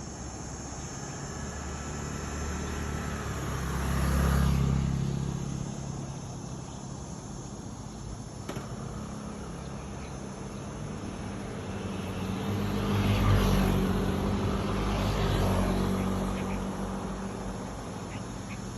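Motor vehicle engines passing close by, the engine and road noise swelling and fading twice: about four seconds in, and again from about twelve to sixteen seconds in.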